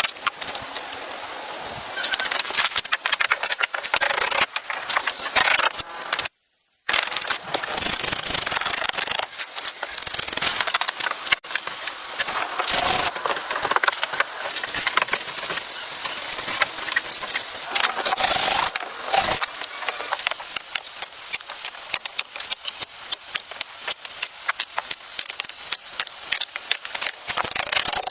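Wood being worked by hand: a dense run of scraping and crackling strokes, broken by a brief dropout about six seconds in.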